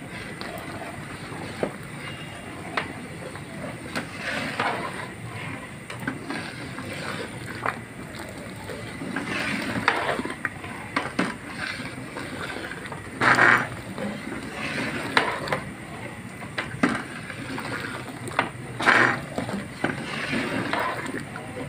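Long metal ladle stirring thin dal in a large aluminium pot: irregular scraping strokes and clinks of metal on the pot's sides, with the liquid swishing. The loudest strokes come about two-thirds of the way through and again near the end.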